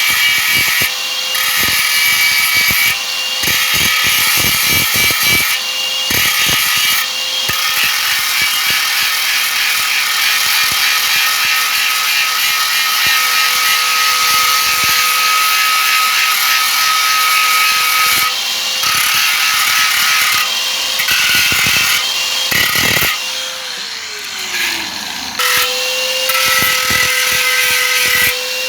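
Power grinder grinding down a weld on a metal wok: a steady motor whine under a harsh grinding hiss, thinning briefly several times as the disc lifts off the metal. Near the end it is switched off, its whine falling as it spins down, then started up again.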